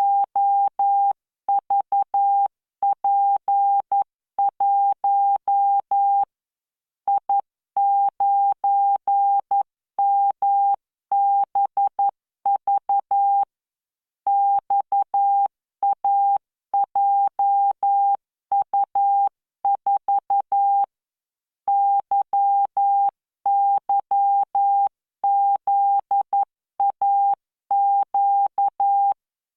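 Morse code practice tone from the LearningMorse training software: one steady pitched beep keyed on and off in dots and dashes at 11 words per minute, with a longer pause between groups about every seven seconds.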